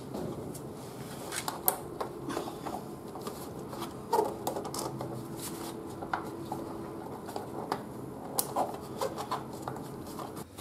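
Hands working a brake-line clip against a plastic motorcycle front mudguard: a run of irregular small clicks and taps.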